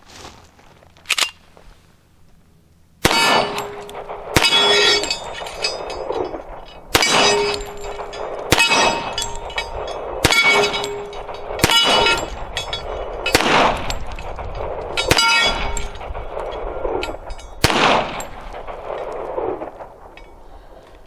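Hi-Point .45 ACP pistol fired about nine times at a slow, steady pace, a shot every one and a half to two and a half seconds, starting about three seconds in. Several shots are followed by a ringing metallic tone, likely the steel plate target being hit.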